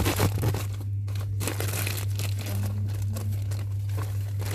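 Plastic parcel packaging being torn open and crinkled by hand, a continuous irregular crackling, over a steady low hum that stops near the end.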